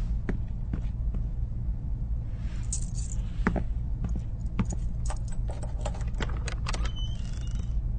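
Steady low hum with a scattered run of light clicks and taps, most of them in the second half, and a brief rustle about three seconds in.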